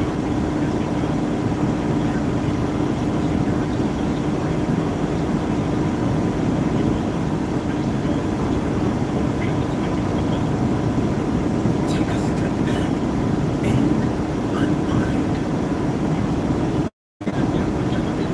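Steady engine drone and road rumble of a semi truck heard from inside its cab while it drives at highway speed, with a few faint ticks or rattles; the sound drops out briefly near the end.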